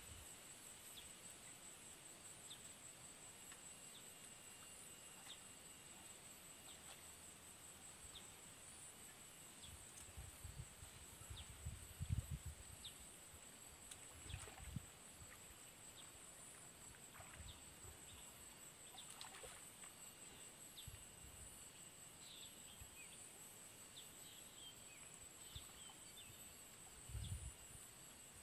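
Quiet steady drone of insects with faint scattered chirps, and a few soft low sloshes of water as a gill net is lifted and handled in the pond. The sloshes are loudest about twelve seconds in and again near the end.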